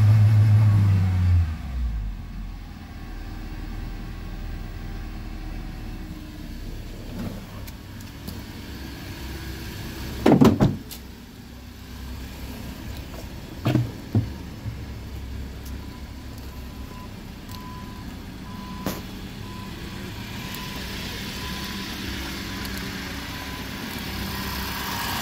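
LDV G10's 2.0-litre four-cylinder petrol engine coming down from a rev and then idling steadily. There are a few loud knocks about ten and fourteen seconds in.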